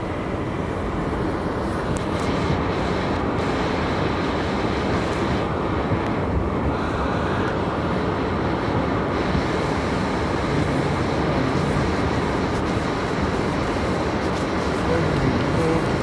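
Car interior noise while driving on a snow-covered street: a steady low rumble of the engine and tyres heard from inside the cabin.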